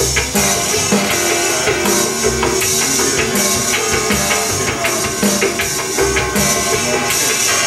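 Live electronic music played from a laptop and keyboard through Roland amplifiers, with a steady beat of low pulses about once a second under hissing high percussion and sustained tones.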